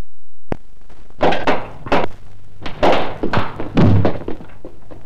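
A toy gun shooting balls: a sharp click about half a second in, then a run of five or six loud knocks and thuds with a short ringing after each, as the balls strike around a kitchen. The heaviest thud comes near the end, as a man coming through the door is hit. A steady low hum from the old film soundtrack runs underneath.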